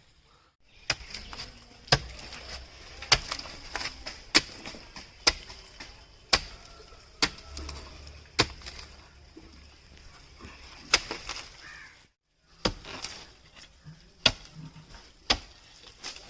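Chopping: a blade striking coconut palm wood in a steady rhythm of about one blow a second, each a sharp knock.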